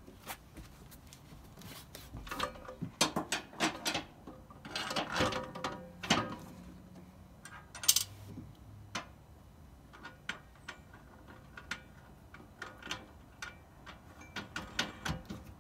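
Clicks, knocks and light rattles of a metal motorcycle tie-down rack being fitted and adjusted by hand, busiest a few seconds in, with a single sharp click about eight seconds in.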